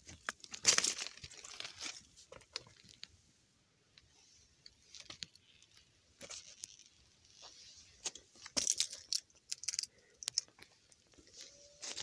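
Footsteps crunching on dry fallen leaves and loose stones, coming in irregular bunches with quiet pauses between, loudest about a second in and again around nine seconds.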